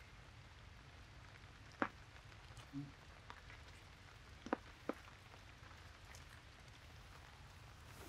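Water dripping from wet forest trees after rain: a handful of sharp, isolated ticks over a faint steady hiss.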